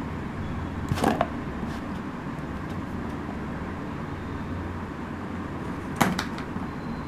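Steady low background rumble, with two brief knocks and rustles of toy figures being handled and set down in a cardboard box: one about a second in and a sharper one about six seconds in.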